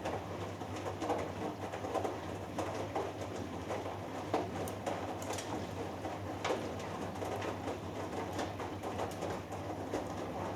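Hoover Dynamic Next washing machine in the wash phase of a cotton cycle, its drum turning and tumbling the wet load: irregular sloshing and soft knocks over a steady motor hum.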